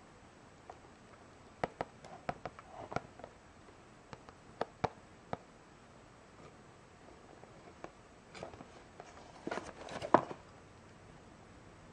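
A small cardboard box handled in the fingers: scattered light taps and clicks of the cardboard, then a denser run of handling noise as the box is turned over, ending in one sharper knock about ten seconds in.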